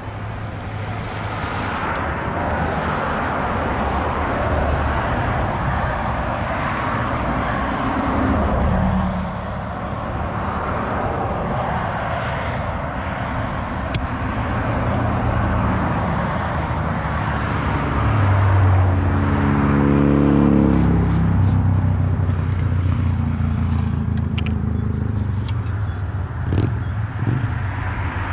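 Motor vehicle traffic passing by, a steady outdoor drone; about two-thirds of the way through, one vehicle's engine note swells and falls in pitch as it goes past.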